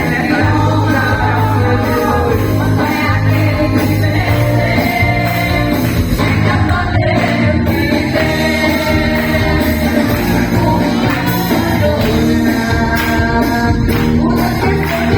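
Women's choir singing a gospel song, with instrumental accompaniment and a steady bass line underneath.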